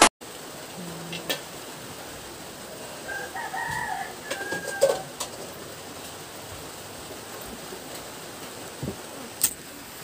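A rooster crowing once, one drawn-out call of about a second and a half a few seconds in, over a steady background hiss, with a couple of sharp clicks.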